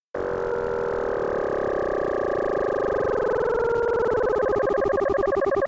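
A cluster of computer-generated tones made in the Desmos graphing calculator, starting just after a silence. The tones waver and drift together into one chord, and a pulsing warble speeds up toward the end.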